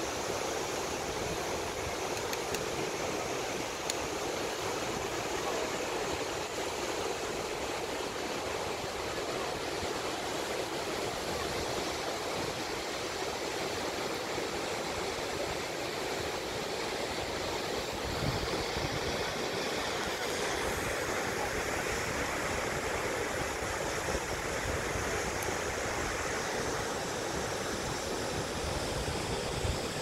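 Athirappilly waterfall rushing steadily: an even, unbroken wash of falling water.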